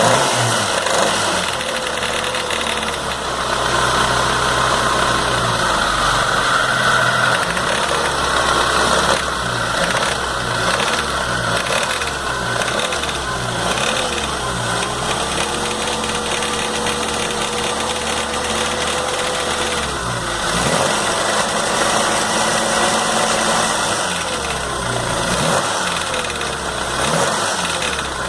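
MG 1300's four-cylinder A-series engine running, held steady for stretches and revved up and down several times, with the rattle that the owner eventually traced to the idler gear after rebuilding the engine.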